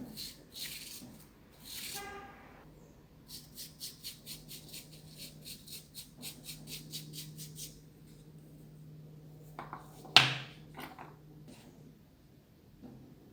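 Paintbrush scrubbing over a remote control in rapid, even strokes, about four or five a second, over a low steady hum. A sharp loud click comes about ten seconds in, followed by a few smaller clicks.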